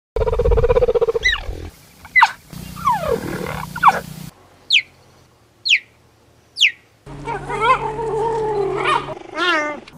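Cheetah vocalising in a run of short clips: a held call, falling yelps, then three short, high, falling chirps about a second apart, and a wavering, stuttering call near the end.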